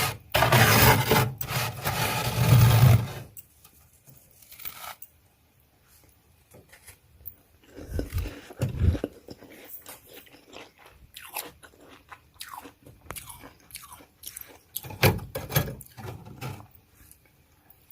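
Freezer frost being scraped loudly for about three seconds, then bitten and chewed, with scattered crunches that are loudest around eight and fifteen seconds in.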